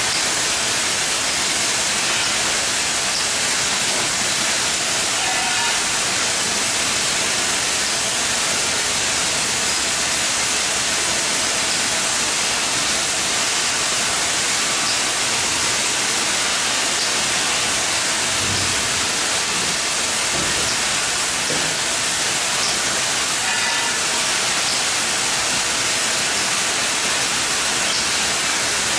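CNC oxy-fuel cutting torch hissing steadily as its oxygen jet cuts through steel plate.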